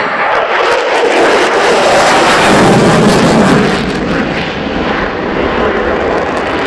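Jet noise from a Polish Air Force F-16C's Pratt & Whitney F100 turbofan as the fighter passes overhead in a banked turn. It swells to its loudest about two to three seconds in, with a falling pitch, then eases off.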